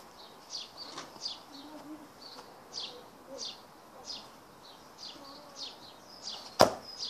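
A garden bird chirping over and over, short high notes that fall in pitch, about one and a half a second. A single sharp knock near the end, the loudest sound.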